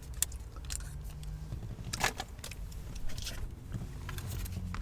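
Low steady hum of an idling car heard inside the cabin, with a few short clicks and rattles of food containers being handled.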